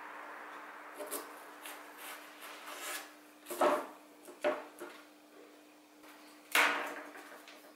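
Hobby knife scraping and cutting masking tape on a knife blade over a cutting mat: small scrapes and clicks, then a few sharper knocks of tools being handled and set down, the loudest about six and a half seconds in.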